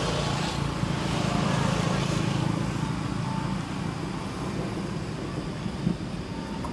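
Steady low outdoor rumble with a hiss over it, with no distinct events.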